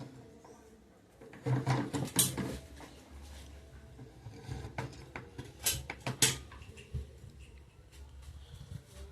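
Metal clunks and rattles from a homemade bench drill press being handled. A burst of knocks comes about one and a half to two and a half seconds in, then a few sharp clicks over a faint low hum.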